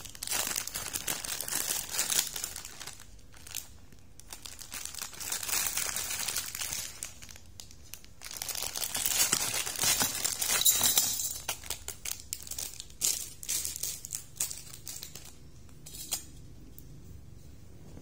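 Plastic instant-noodle packet crinkling and rustling as it is handled, in several long stretches, loudest about ten seconds in as the dried noodle block is shaken out of the wrapper into a stainless steel bowl. A few lighter crackles follow before it goes quiet near the end.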